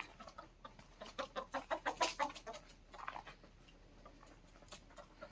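Native country chickens clucking in a quick run of short calls, loudest about two seconds in, with a few scattered clucks after.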